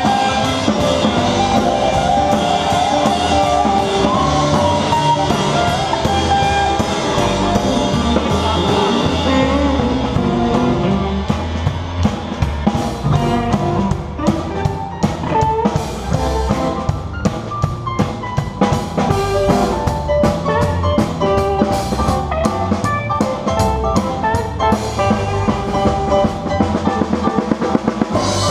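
A blues band of electric guitar, bass and drum kit playing a blues jam during a sound check.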